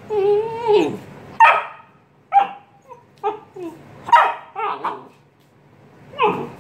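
Great Dane puppy barking at a hand brush: a drawn-out yowl at the start, then about seven short, high barks, with a brief pause about five seconds in.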